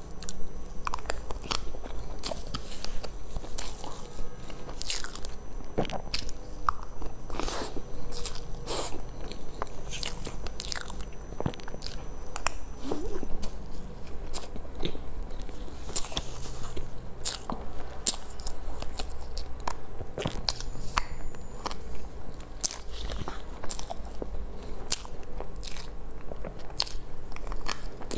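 Close-miked eating sounds of a soft cream-and-cake dessert eaten with a spoon: irregular wet lip smacks and chewing clicks, several a second.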